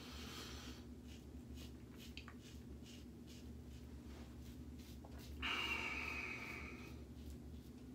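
Vintage Gillette adjustable double-edge safety razor scraping through lathered stubble in short, faint strokes. About five and a half seconds in, a louder breath out through the nose that fades over a second or so.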